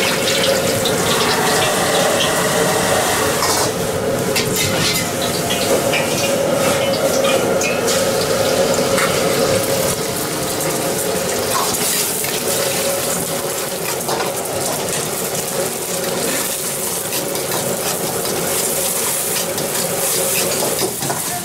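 Steady roar of a high-powered gas wok burner at full flame, with the metal ladle scraping and clinking against the carbon-steel wok as oil and beaten egg are worked in it.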